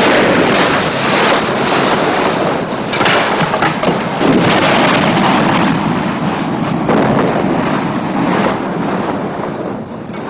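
Loud, dense rushing noise that shifts abruptly several times and eases off near the end.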